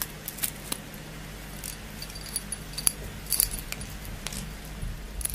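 Scattered light clicks and crinkles from hands handling a chocolate surprise egg and its wrapping, over a steady low hum.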